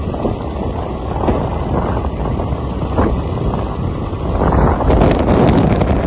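Wind blowing hard across the microphone, a loud, uneven rumbling rush that swells about four and a half seconds in.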